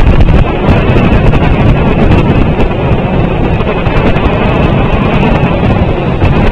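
Loud, steady wind buffeting the nest camera's microphone, a dense low rumble with no break.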